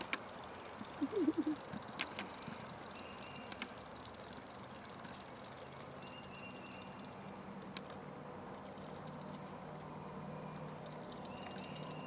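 Spinning fishing reel being cranked to wind in a heavy bobber after a missed cast: a quiet mechanical whirr with a few clicks. A low steady hum comes in over the second half.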